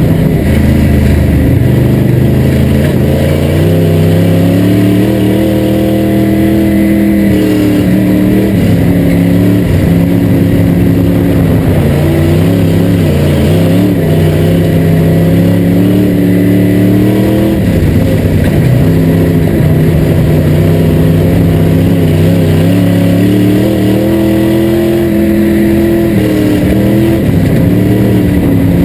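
IMCA sport modified's 355 crate V8 at racing speed, heard from inside the cockpit. Its note drops as the throttle is lifted for the turns and climbs again down the straights, several times over.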